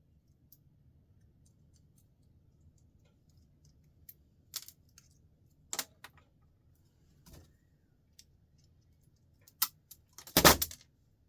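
Scattered clicks and light clinks of small metal and plastic parts being handled while a light fixture is taken apart, with a louder brief clatter near the end.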